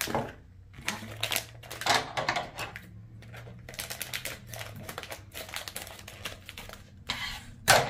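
Scissors snipping through a foil blind-bag packet: a run of sharp snips and foil crinkles, with one louder snip near the end.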